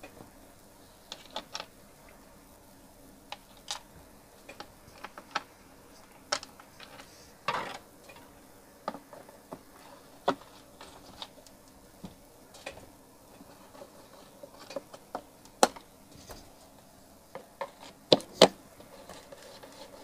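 Hands handling a Bluetooth speaker's plastic housing on a workbench: scattered, irregular light clicks and knocks, with a few sharper clicks near the end.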